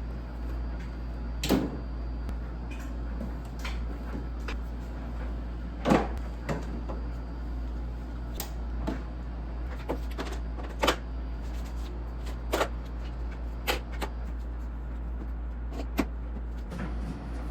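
Scattered short knocks and clicks, about ten in all, over a steady low hum. The loudest come about a second and a half in and about six seconds in.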